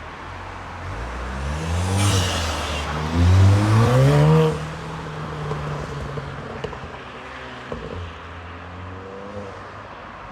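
Modified Volkswagen Golf R Mk7 turbocharged four-cylinder accelerating hard, its pitch rising twice through the gears about two and four seconds in with a rush of induction noise. It then settles to a steadier, lower engine sound that slowly fades.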